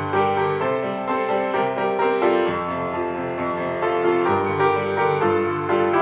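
Grand piano playing a solo introduction of chords over held bass notes.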